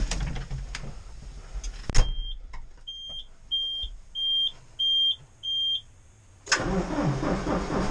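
A sharp knock as the cab door shuts, then six short high beeps at an even pace from the dashboard as the ignition is switched on. Near the end the John Deere 5085M's four-cylinder diesel cranks and catches, then runs at idle.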